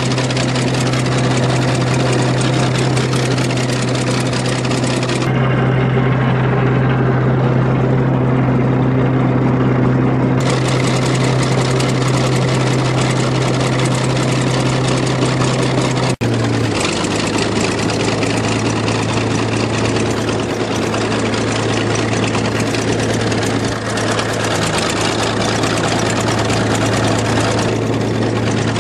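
Old crawler dozer's diesel engine running steadily. About halfway through there is a brief break, after which it runs on at a slightly lower pitch.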